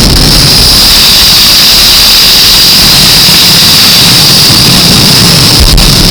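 Fireworks going off: a loud, steady hissing roar with a high, whistle-like band running through it.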